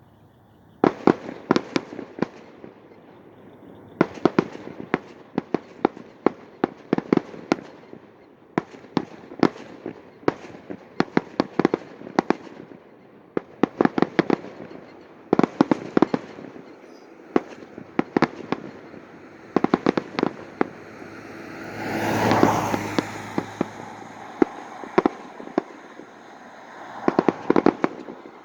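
Fireworks display: rapid clusters of sharp bangs and crackles from bursting shells, with short gaps between volleys. About three-quarters of the way through, a louder rushing swell rises and falls.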